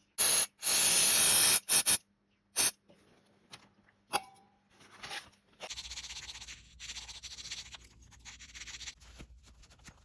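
Spray hissing in several short, loud bursts during the first two seconds, then a few faint clicks, and a quieter uneven scrubbing rub from about six seconds in.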